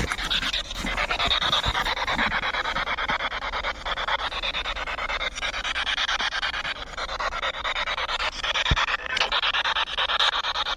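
SB7 Spirit Box sweeping through radio stations: a steady hiss of radio static from its small speaker, chopped into rapid pulses as it jumps from station to station.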